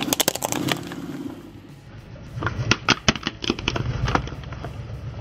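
Plastic optical computer mouse cracking and crunching under a slowly rolling car tyre: a quick run of sharp cracks at the start, then a second, louder run of cracks and crunches about halfway through as the tyre rides over it, over the low rumble of the tyre on gravelly asphalt.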